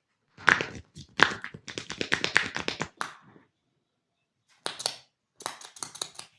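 Hands striking the body in a percussive massage: sharp smacks and claps, first a few single ones, then quick runs of about eight a second, with a pause of over a second in the middle.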